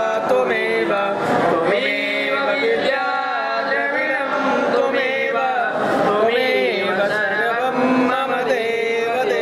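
Male voices singing a Hindu devotional aarti hymn in a chanting style, with musical accompaniment.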